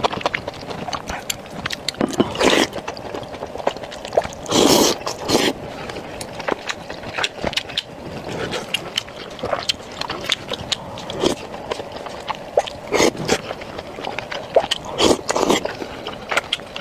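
Close-miked eating sounds from a mouthful of fatty beef and enoki mushrooms: wet chewing with many small rapid clicks. A few louder, longer mouth noises come about two seconds in, near five seconds, and twice near the end.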